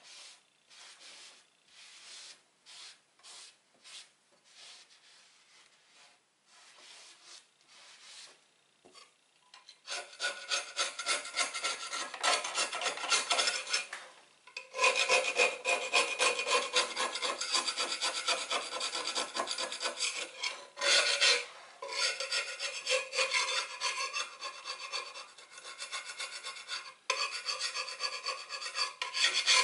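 Stainless steel scraper rasping over the bottom of a cast iron frying pan, lifting heavy stuck-on char. It begins as light, separate strokes and turns to fast, loud, continuous scraping about a third of the way in, with a few short pauses.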